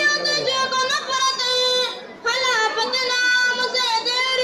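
Boys singing an Urdu nazm through a microphone, holding long wavering notes that break off briefly about two seconds in before the melody resumes.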